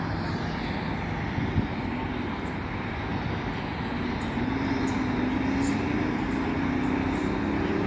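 Distant jet airliner engine noise: a steady rumble, with a low hum that climbs slowly in pitch from about four seconds in.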